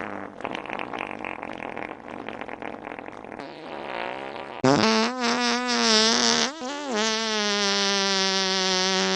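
Fart sounds: a raspy, rapidly fluttering fart, then about halfway through a loud pitched fart that wobbles up and down in pitch, a brief break, and a long steady low-pitched fart held to the end.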